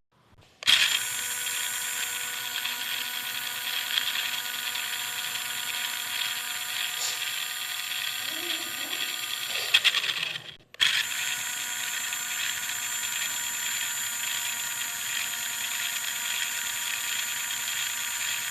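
A small electric motor, most likely the RC car's drive motor, running with a steady whine over hiss. It cuts out briefly about halfway through, then runs on at the same pitch.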